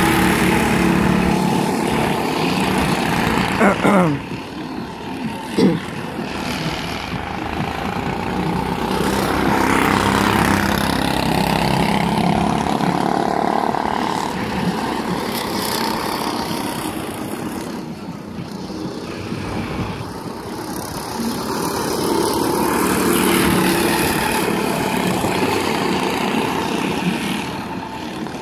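Go-kart engines running on the track, loudest in the first few seconds with sharp changes in pitch as revs rise and fall, then fainter and steadier as the karts run further round the circuit.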